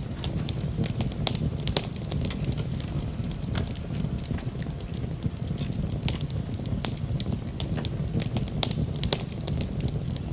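Fire crackling in a fireplace: a steady low rumble of flames with many irregular sharp pops and snaps scattered throughout.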